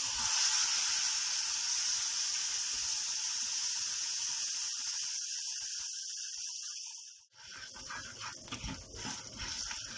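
Lemon juice poured into hot tempering oil in a kadai: a loud steam hiss that sets in at once and slowly dies away over several seconds. After a brief break, a quieter, patchier sizzle continues as the mixture is stirred.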